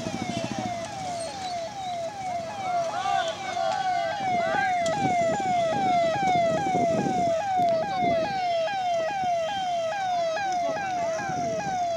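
Fire engine's electronic siren sounding a fast repeating wail, each note dropping in pitch, about two and a half times a second and growing louder. Crowd voices murmur underneath.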